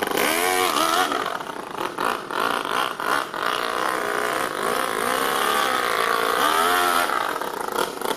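Toyan FS-L200 two-cylinder four-stroke nitro engine in an RC truck, revving hard as the truck drives off under throttle. The pitch rises and falls several times, with a longer climb and drop in the middle.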